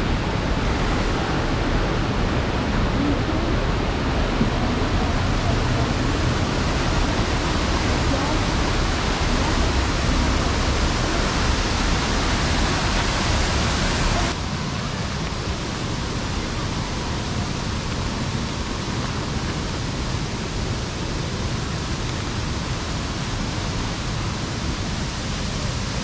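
Waterfall cascading over rocks: a steady, dense rush of falling water. About halfway through it cuts suddenly to a quieter, thinner rush.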